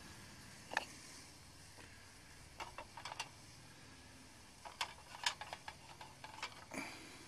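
Light clicks and clinks from a metal pan sitting on a steel plate over a tin-can alcohol stove. They come in a few short clusters, around three seconds in and again from about five to seven seconds.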